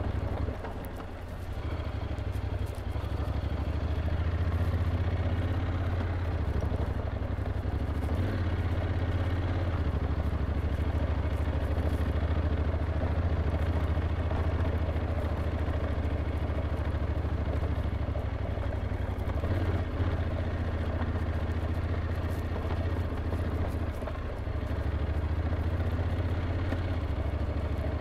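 Honda NC750X DCT motorcycle's 745 cc parallel-twin engine running steadily while riding uphill. The level dips briefly about a second in and again near the end.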